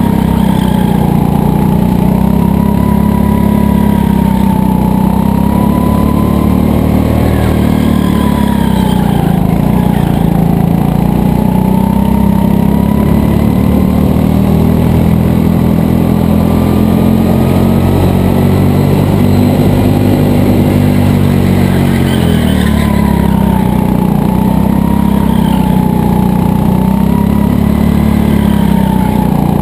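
Go-kart running at speed, heard from on board: its motor runs without a break, the pitch dipping and rising again as it slows for corners and speeds up.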